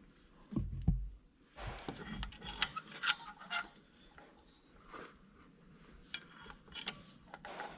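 Hand work on small metal parts: light clinks and scraping as spacer washers and the tightener bolt are worked into the alternator tensioner bracket. There is a dull thump about a second in, and the busiest clinking comes between about two and four seconds.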